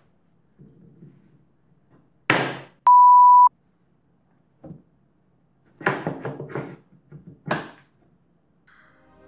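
Knocks and clatter of workshop handling, with one sharp bang about two seconds in followed at once by a loud, steady, high bleep lasting about half a second, the kind used to cover a swear word. A cluster of knocks and scrapes follows a few seconds later, and one last knock near the end.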